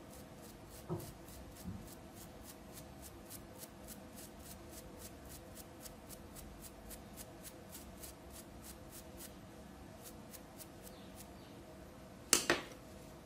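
Bristle brush scrubbing a small circuit board wet with alcohol, a rapid even run of short scratchy strokes about four a second, cleaning off soldering-paste grease after desoldering. Near the end, a couple of louder knocks.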